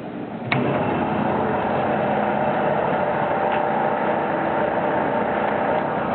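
A 1970 Grob 4V-18 bandsaw switched on with a click about half a second in, then its motor and blade running steadily.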